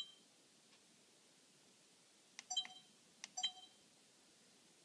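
Sony HDR-CX220 Handycam's operation beeps: a short beep at the start, then twice a light click of a control being pressed, each followed at once by a short electronic beep, about a second apart. Faint.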